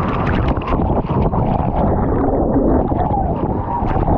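Small waterfall on a creek, water rushing and splashing: a loud, steady noise with many short crackling splashes over it.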